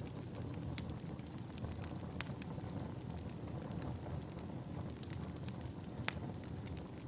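Wood fire burning in a fireplace: a steady low rumble of flames with scattered sharp crackles and pops, a few louder pops among them.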